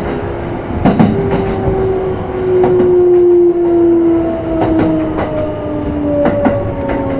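Running sound of a Kintetsu 5200 series electric train, heard inside motor car Mo 5253. A whine from the traction motors and gearing slides steadily down in pitch as the train slows, over a rumble of running gear, with wheels clacking over rail joints now and then, some clacks in pairs.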